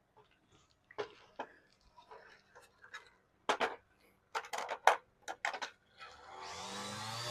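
Scattered light clicks and taps as wires and a metal light fixture are handled during wiring, coming in small clusters with the sharpest a little after four seconds in. Near the end a steady hum starts and grows louder, with a faint rising whine above it.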